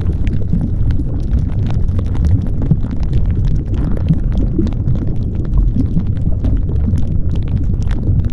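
Steady, loud, deep rumbling noise with scattered crackles, the masking track that a subliminal audio lays over its hidden affirmations.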